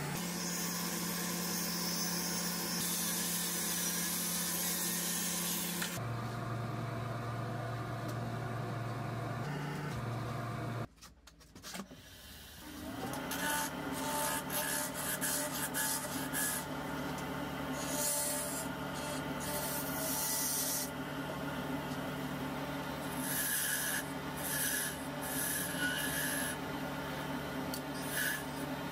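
Wood lathe running while sandpaper is held against the spinning zelkova bowl, a steady hiss that stops about six seconds in, leaving the motor hum. After a sudden drop near eleven seconds, a lathe hums while a hand tool cuts a small spinning wood spindle in repeated short scraping passes.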